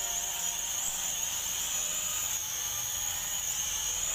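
Small toy quadcopter's motors and propellers running in a steady high-pitched whine as it hovers, with the pitch wavering slightly, after a motor repair.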